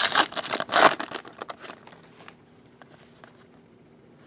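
Crinkling and rustling of trading cards and their packaging being handled, loudest in quick bursts over the first second and a half, then only faint handling.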